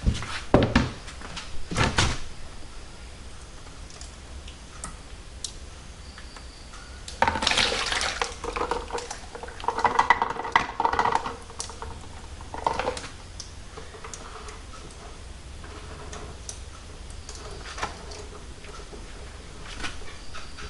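Hands-on workshop sounds: sharp knocks of parts or containers being handled, then several seconds of liquid pouring and sloshing with a clattering, ringing rattle of metal or plastic about halfway through, and scattered small clicks.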